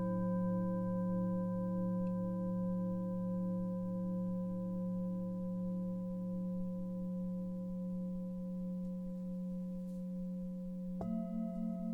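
Tibetan singing bowl ringing on after a strike, its layered tones holding steady with a slow, wavering pulse and slowly fading. Near the end a second bowl of a different pitch is struck and rings out over it.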